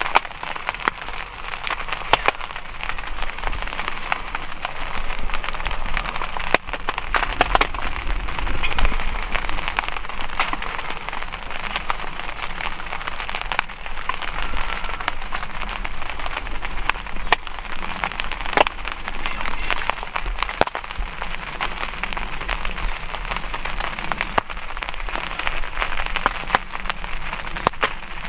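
Steady rain pattering, with many scattered sharper drop hits.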